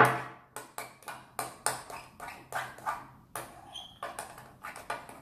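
A spoon clinking and scraping against a glass bowl as it stirs a wet glue and shaving-foam slime mixture. The strokes come quickly and repeatedly, about three or four a second, with the sharpest knock right at the start.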